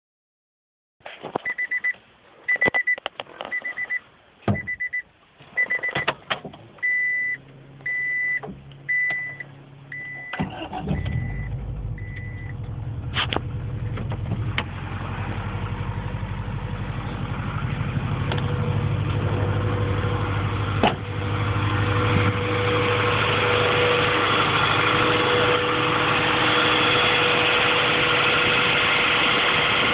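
A car's warning chime beeps repeatedly among clicks and handling noises, then the engine starts about ten seconds in and keeps running, slowly getting louder. The owner asks whether the engine's noise is rod knock.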